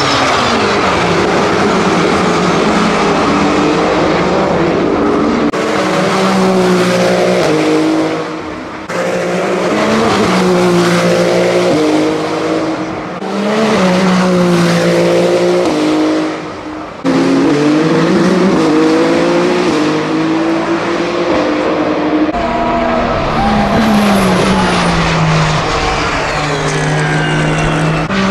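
Toyota GR010 Hybrid's 3.5-litre twin-turbo V6 racing engine at full speed, its pitch repeatedly climbing and then dropping with gear changes as the car passes. Several short passes follow one another, each cut off abruptly.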